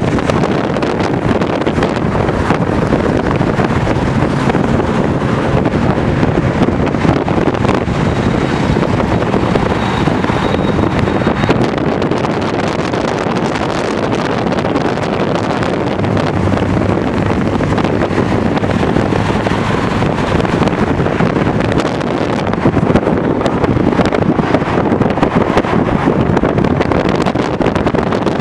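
Steady wind rush and road noise from a car driving along, with wind buffeting the microphone.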